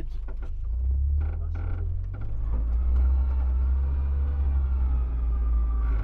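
Volkswagen Kombi van running and rolling slowly over a rough dirt track, a steady low rumble of engine and road noise.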